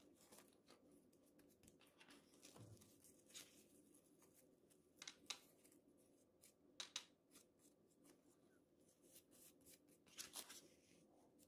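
Near silence, with a few faint, short crackles of a dry laver (gim) sheet being folded and pressed by hand around a rice roll.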